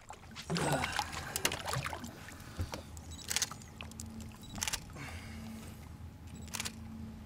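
Water splashing as a hooked fish is lifted out on a butterfly jig, then three sharp knocks as the fish and tackle are handled against the boat, over the steady low hum of the boat's engine.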